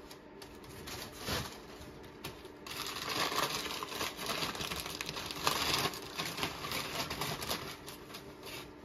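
White packing paper rustling and crinkling as an item is unwrapped, with scattered small clicks and taps from handling. The rustling gets louder about three seconds in.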